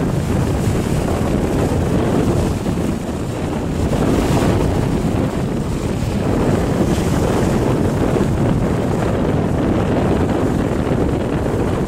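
Strong wind buffeting the microphone, a loud, steady rumble, over the wash of choppy sea.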